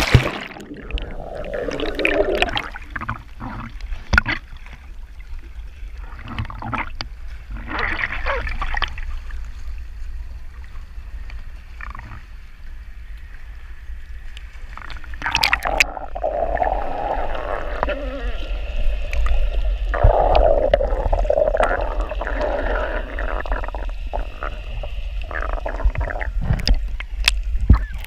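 Seawater gurgling and sloshing around a waterproof action camera as it moves between underwater and the surface, over a steady low rumble, with scattered knocks and splashes.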